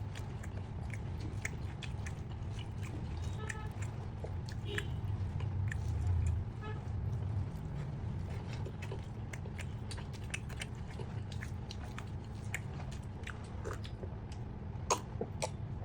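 A person chewing and biting chicken vuna, with many small, irregular wet mouth clicks and smacks over a steady low hum.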